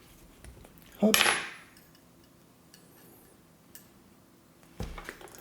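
Light metallic clicks and clinks of a hand tool working an electrical cable, with one short sharp snap about a second in, a few faint clicks after it and a dull knock near the end.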